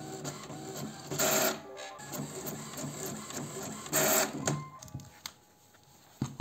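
Home printer printing a photo sheet: a repeating mechanical whir of the print head working back and forth, with two louder bursts of noise about a second in and around four seconds in. It quietens near the end.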